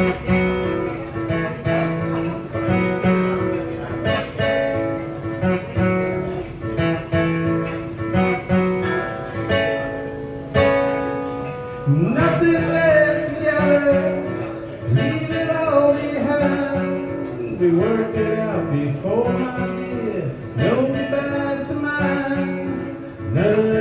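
Acoustic guitar strummed in a steady chord pattern, with a man's singing voice coming in about halfway through over the guitar.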